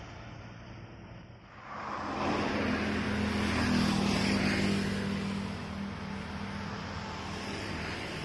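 Road traffic: a bus engine fades away, then after a brief dip a truck and motorcycles pass close by with engine hum and tyre noise, loudest about four seconds in, then settling to a steady level.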